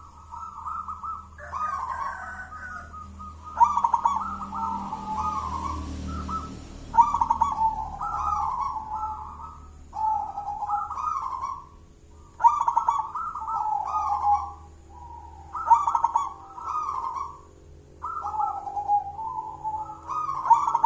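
Zebra dove (perkutut) cooing its song: short rolling phrases, each opening with a sharp note, repeated about every two to three seconds.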